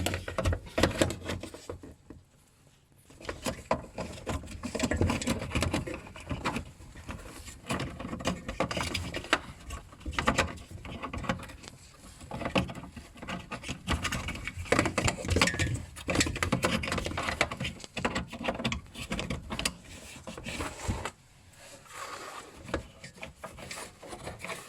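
Hands untangling motor wiring and pushing plastic connectors into their sockets inside a ventilation unit: irregular rustling, rubbing and small clicks and knocks, with the fan motors not running.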